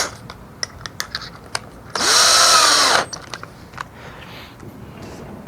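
A 1995 DeWalt electric drill triggered in a short burst of about a second, two seconds in, its motor speeding up and winding down. Before and after the burst come a few light clicks.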